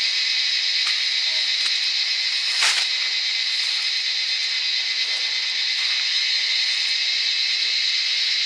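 Dense, steady chorus of insects at dusk, a shrill high hiss made of several close pitches. A brief knock sounds near three seconds in.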